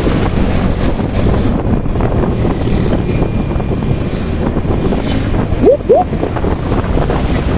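Wind buffeting the microphone of a camera riding on a moving motorcycle, over a steady rumble of engine and road noise. About two-thirds of the way through come two short rising tones in quick succession, the loudest sounds in the stretch.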